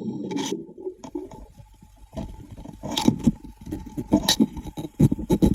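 Irregular clicks and low knocks underwater, scattered unevenly, with a faint steady hum underneath.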